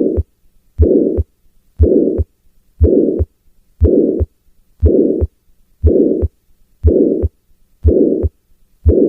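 Heart sounds with a harsh systolic murmur filling the gap between the first and second heart sounds, repeating at about one beat a second. This is the ejection murmur of tetralogy of Fallot, made by blood forced through the narrowed right ventricular outflow.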